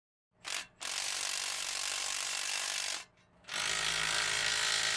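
A power tool sound effect: a brief blip about half a second in, then two runs of mechanical whirring of about two seconds each, with a short pause between.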